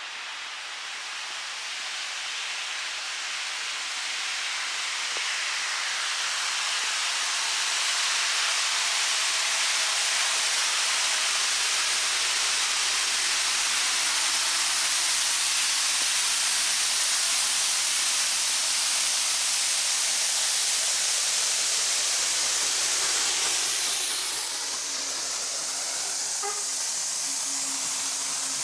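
Steam locomotive approaching and passing with a train of vintage carriages, a loud steady hiss of steam over everything. The hiss builds as the engine draws near, holds, then falls away near the end as the engine passes and the carriages roll by with a low steady hum.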